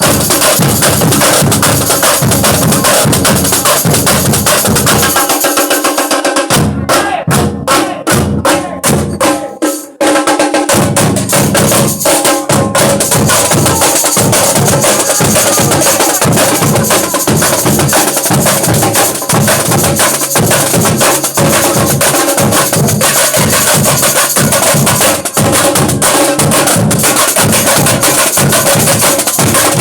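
Comparsa drum troupe playing a loud, driving percussion rhythm. From about six and a half to ten seconds in, the deep drums drop out, leaving only sharp, evenly spaced strikes, and then the full ensemble comes back in.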